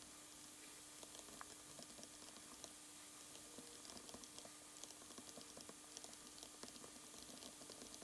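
Near silence: faint scattered ticks and taps of a stylus writing on a tablet screen, over a faint steady hum.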